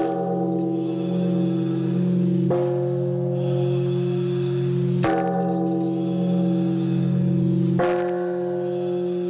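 Large temple bell struck with a swinging wooden log, four strikes about two and a half seconds apart. Each strike rings on in deep, steady tones that carry over into the next.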